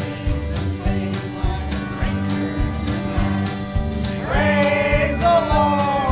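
Group of voices singing a gospel hymn over a steady beat of about two strokes a second; a louder voice with wavering pitch rises above the rest about four seconds in.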